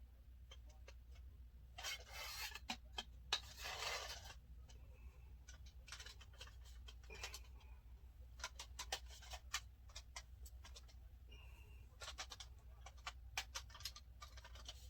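Handling noises from a ring light stand being unpacked and put together: scattered light clicks and taps of its parts, with two short bursts of rustling about two and three and a half seconds in. A faint steady low hum runs underneath.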